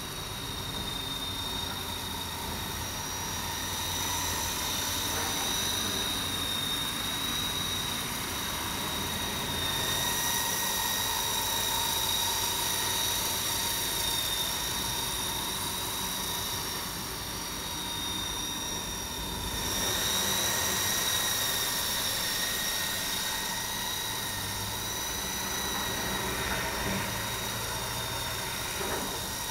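E-Sky Lama V4 coaxial electric RC helicopter flying: a steady high whine from its electric motors with rotor noise, swelling louder about ten seconds in and again near twenty seconds as it moves around.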